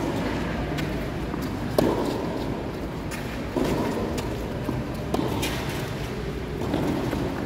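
Tennis ball struck back and forth by rackets in a rally, a sharp pock about every one and a half to two seconds, with a lighter knock in between once.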